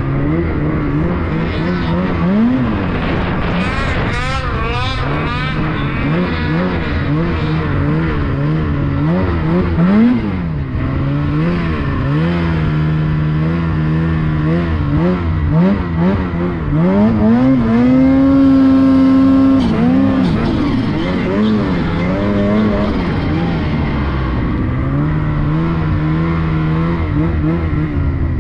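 Ski-Doo Summit X 165 Turbo snowmobile's two-stroke turbocharged engine being ridden, revving up and down over and over with quick throttle swoops. About two-thirds of the way through it holds high revs for a couple of seconds.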